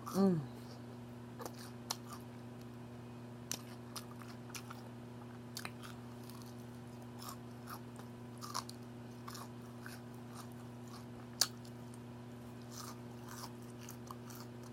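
Close-up chewing and biting of crispy onion rings, with scattered sharp crunches a second or so apart, over a low steady hum. A brief falling vocal sound comes right at the start.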